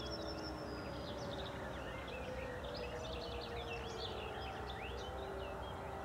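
Fire-alarm sirens, a DS977 and an E57 among them, wailing with slow rises and falls in pitch, several out of step with one another, signalling a fire brigade call-out. Birds chirp over them.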